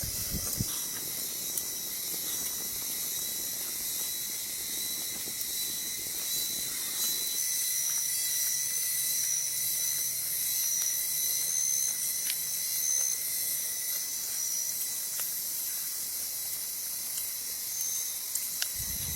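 Steady, high-pitched chorus of insects in the forest, with brief low rustling near the start and again at the very end.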